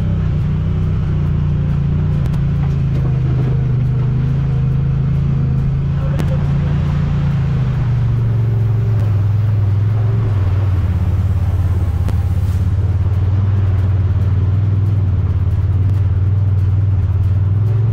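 Side-by-side UTV engine running under way with a steady drone that drops a little in pitch about halfway through.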